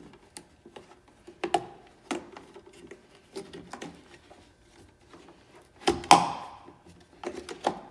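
Parts being handled on a workbench: scattered light clicks and knocks, with one louder clank about six seconds in that rings briefly.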